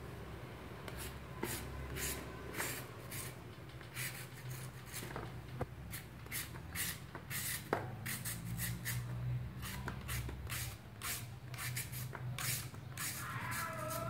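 A hand peeler shaving thin slices off a firm peeled green mango: a run of short, irregular scraping strokes, roughly two a second, starting about a second in.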